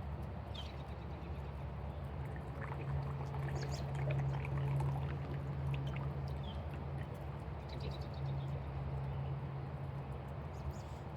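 Steady rain, with a low steady hum underneath. Birds give short high chirps several times.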